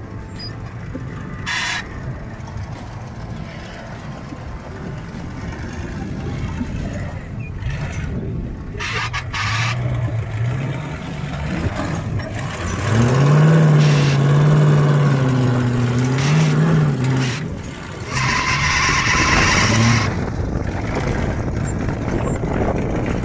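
Off-road 4x4's engine running low, then revved hard in repeated surges from about ten seconds in, its pitch rising and falling as it climbs over a dirt mound. A loud hissing burst comes about two-thirds of the way through.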